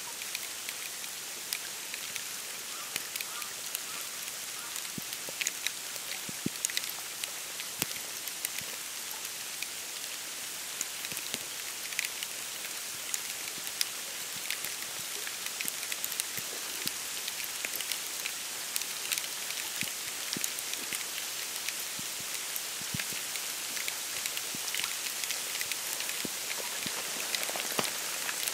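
Falling snow pattering on dry reeds and bare branches: a steady soft hiss scattered with many small ticks of flakes landing.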